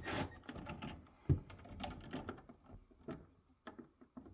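Scattered small clicks and taps of screws and plastic parts being handled while the ice maker assembly screws inside a refrigerator freezer are loosened, with one louder knock about a second in.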